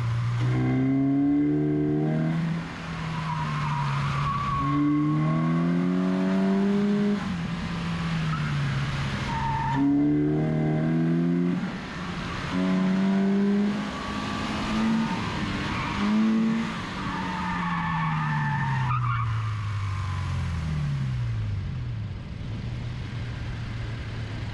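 Car engine revving hard, its note climbing and dropping again and again as it accelerates and lifts off, with tires squealing.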